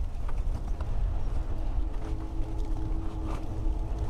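Wind buffeting the microphone as a deep, uneven rumble. From about a second and a half in, a steady pitched hum from an unseen machine runs underneath it.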